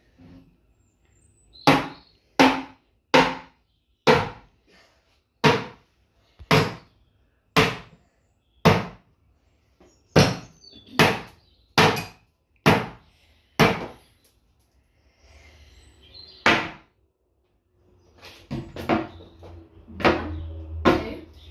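A series of about a dozen sharp knocks, each with a short ring, coming roughly one every second, then a looser clatter of knocks near the end.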